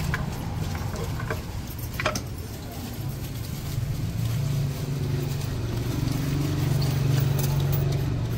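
A motor vehicle's engine runs as a steady low hum that comes up about three seconds in and holds. Before it, short scraping clicks come from a hand shredder cutting strips from a green papaya.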